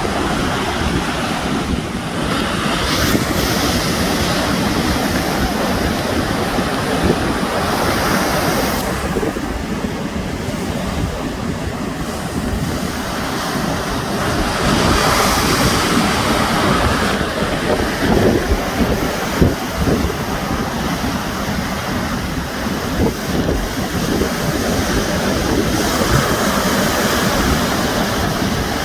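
Sea waves washing on the shore, each wash swelling and fading every several seconds, with wind rumbling on the microphone.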